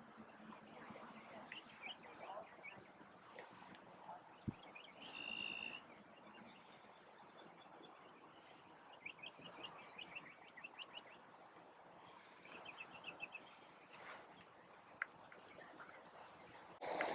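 Birds chirping: a short, high chirp repeating about once a second, with several quick trilled phrases in between.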